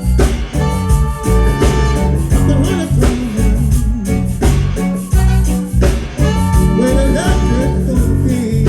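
Live reggae band playing, with a heavy bass line and held melodic notes over the rhythm, no words sung.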